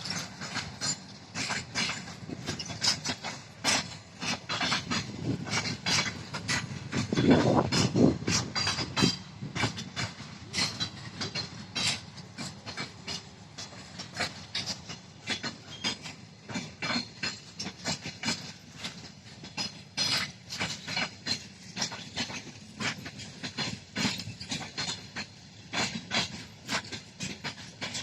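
Passenger train rolling by, its wheels clicking over the rail joints many times in quick, uneven succession over a steady rumble. A louder rumble swells about seven to eight seconds in.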